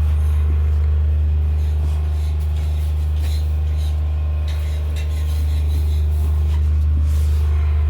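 Steady low engine rumble of a running motor vehicle, unchanging in pitch, with a few faint knocks over it.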